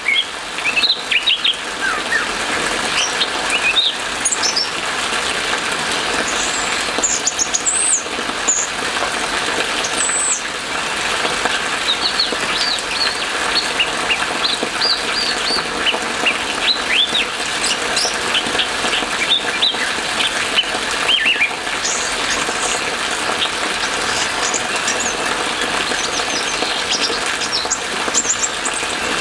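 Orange-headed thrush singing in scattered bursts of short, high chirping notes over the steady hiss of rain.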